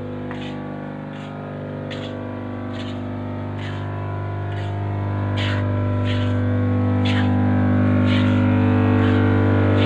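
Workshop machinery running with a steady low electric hum that grows louder in the second half. Short sharp ticks repeat about every 0.8 s.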